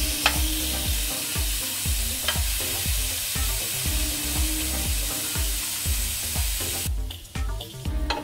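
Halloumi slices sizzling on a ridged grill pan, a steady frying hiss that cuts off suddenly about seven seconds in. It is followed by a few sharp clicks of a metal utensil against the pan, over background music with a steady low beat.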